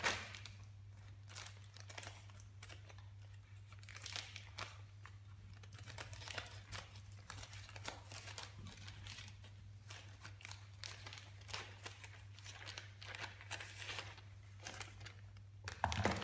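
Plastic courier mailer bag crinkling and crackling in irregular bursts as hands handle it, over a faint steady low hum.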